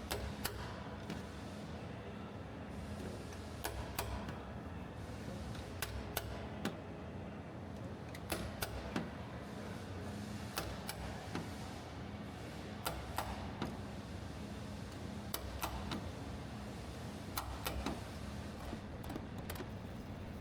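Sharp metallic clicks and taps, scattered irregularly every second or so, over a steady low hum: dent repair work on a car door panel.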